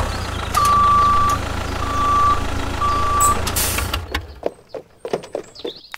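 A heavy vehicle's engine running with a low rumble while a reversing alarm beeps three times; the rumble stops a little over four seconds in, leaving a few scattered clicks.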